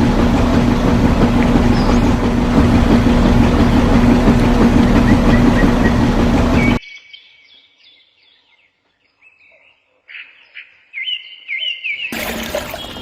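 Loud, steady mechanical noise with a low hum that cuts off abruptly about seven seconds in, leaving small birds chirping. A second short burst of loud noise comes near the end.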